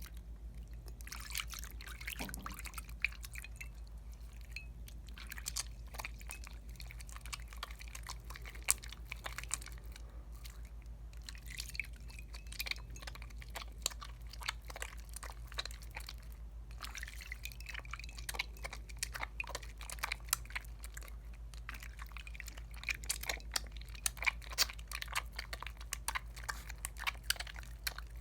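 Dial coconut bar soap being lathered between wet hands: dense wet squishing and crackling of popping suds, pausing briefly about a second in and again around the middle. A steady low hum sits underneath.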